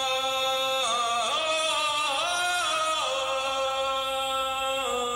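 Background music of slow, chant-like singing: a voice holds long notes and slides to a new pitch about a second in, again around two and three seconds in, and once more near the end.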